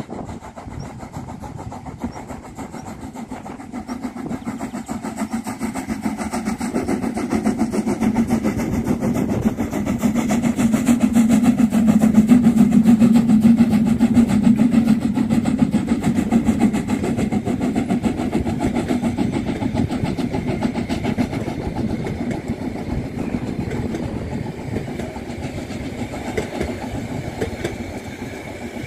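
Narrow-gauge steam locomotive 99 7241-5, a 2-10-2 tank engine, working under steam and chuffing as it approaches. It is loudest as it passes, about twelve to fourteen seconds in, then fades as its coaches roll by.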